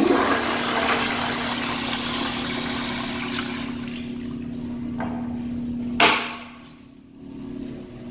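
Toilet flushing: a loud rush of water swirling down the bowl that slowly eases, cut off by a sharp knock about six seconds in as the flush stops, after which only quieter water sounds remain.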